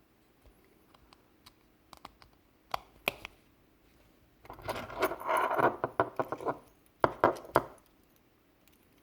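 Mercedes-Benz key fob, its battery tray and coin-cell battery handled in the fingers: scattered light clicks, then about two seconds of rattling and clinking about halfway in, then a few sharp clicks near the end.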